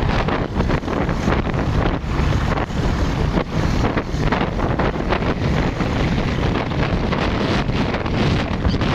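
Wind buffeting the microphone of a camera moving along an open highway: a loud, steady rush of wind noise with frequent short gusts.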